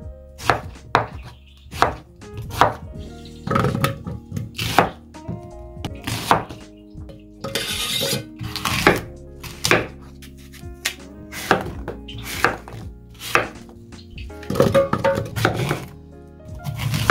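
Knife chopping on a cutting board in uneven strokes, roughly one a second, during kimchi ingredient preparation.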